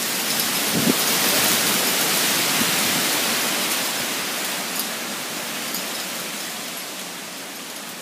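Strong wind gusting through trees, a steady rushing that swells about a second in and then slowly dies down.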